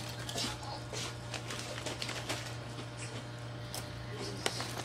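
Potato-chip bag crinkling and chips crunching, a run of short irregular crackles, over a steady low hum.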